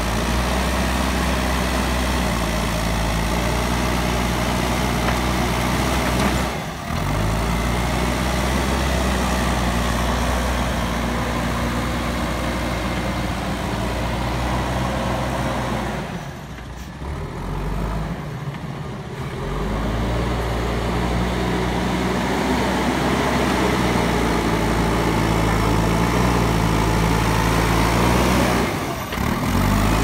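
JCB backhoe loader's diesel engine running and revving as the front bucket works, its pitch rising and falling. The sound dips briefly about a quarter of the way in, for a few seconds just past the middle, and again near the end.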